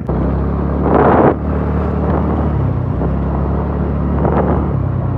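Motor scooter's small engine running steadily at riding speed, with wind noise on the microphone. A brief louder gust about a second in.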